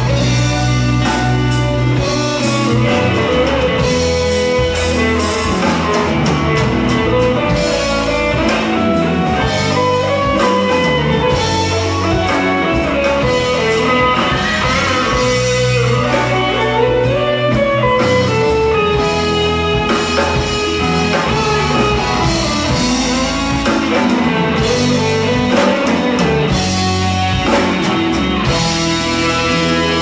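Live rock band playing a blues-rock number, with electric guitars, bass guitar and drum kit, loud and continuous.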